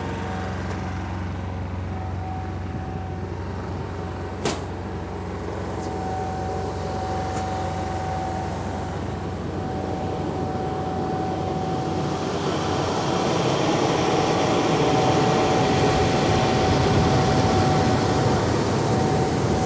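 Boeing 717's auxiliary power unit running in the tail: a steady whine over a rushing roar, growing louder through the second half. A single sharp click about four and a half seconds in.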